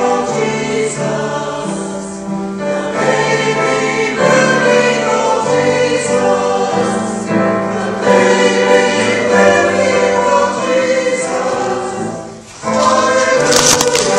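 Church choir singing with piano accompaniment. The singing breaks off for a moment about twelve and a half seconds in, then the next phrase begins.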